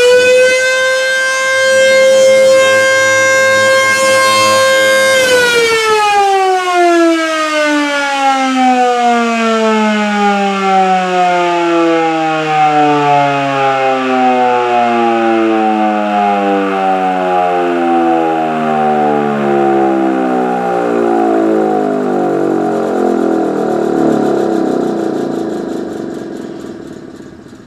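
Electromechanical civil-defense siren sounding an alert: it winds up to a steady tone, holds it for about five seconds, then winds slowly down over about twenty seconds as the rotor coasts to a stop. The siren is switched on by an AR timer set to alert mode and triggered by a weather radio's siren test.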